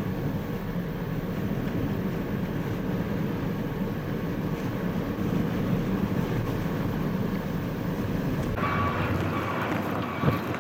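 Steady running noise of a vehicle in a blizzard, a low rumble with the rush of wind and road. About eight and a half seconds in the sound shifts, a faint steady whine joins it, and there is one short knock near the end.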